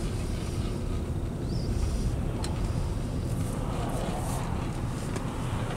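Cabin noise of a 2015 Subaru Legacy on the move: a steady low road and engine rumble, with a drone that the owner puts down to bad wheel bearings.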